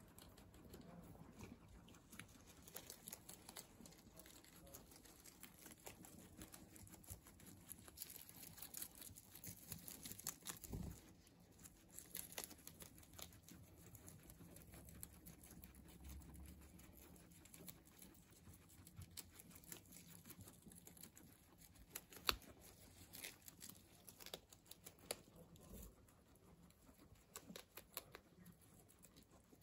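Guinea pigs munching lettuce: faint, quick crisp crunching and tearing of leaves, with now and then a sharper snap.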